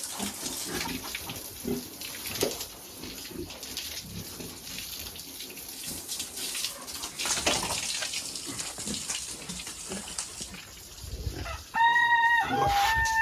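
A rooster crows near the end: a loud, drawn-out call that holds one pitch, steps down and then slides lower. Before it there are only low rustling and scattered clicks.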